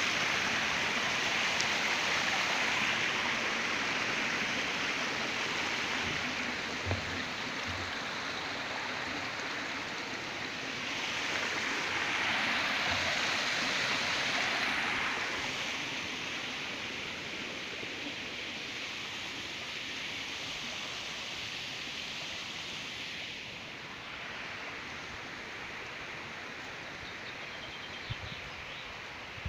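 Water of a small stream flowing over stones in a steady rushing babble, growing louder for a few seconds near the middle and easing off toward the end.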